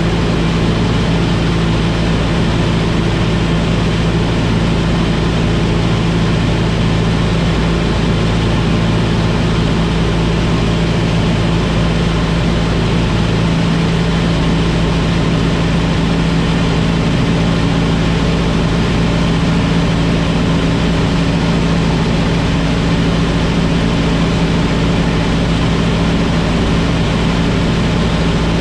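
Single-engine light aircraft's engine and propeller droning steadily in flight, heard from inside the cockpit over a rush of air. The drone shifts slightly about halfway through, as one of its lower tones falls away.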